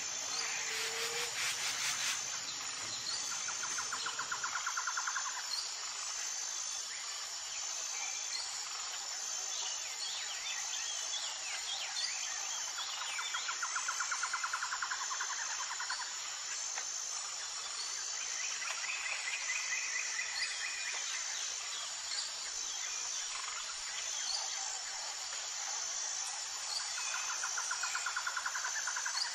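Insects chirping: a high chirp repeating about once a second, with several stretches of rhythmic trilling and a few short bird chirps.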